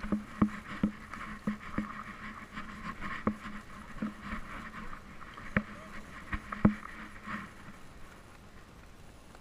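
Knocks and rubbing on the housing of a GoPro worn by a dog as the dog shifts about: about a dozen irregular sharp knocks over a steady rustle, quieter near the end.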